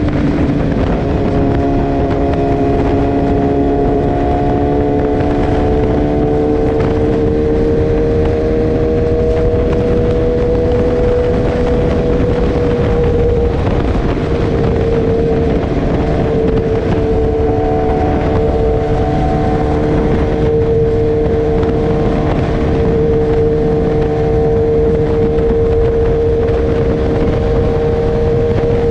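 BMW S1000R inline-four with a full Akrapovic exhaust, running at a steady highway cruise. Its note dips slightly at the start and then holds nearly level, over a constant rush of wind and road noise.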